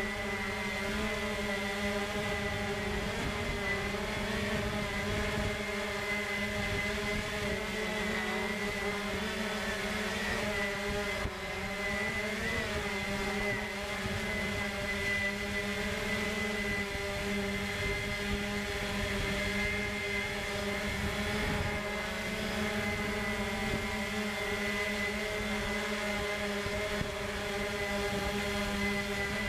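Quadcopter drone's electric motors and propellers, heard through its own onboard camera: a steady buzzing hum of several tones that waver slightly in pitch as it hovers and drifts slowly.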